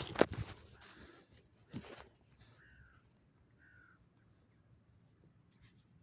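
Footsteps crunching over stony, grassy ground, loudest in the first half-second with another step just before two seconds in. Then two short falling bird calls.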